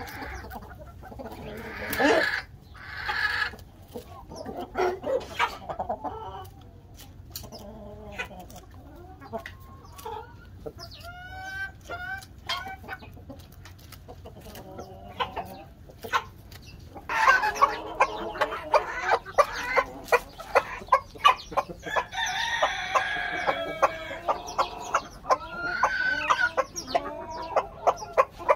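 Hens clucking as they peck at a head of lettuce, mixed with sharp pecking taps on the leaves and ground. The flock grows busier and louder past the middle, with a longer drawn-out call about two-thirds of the way through.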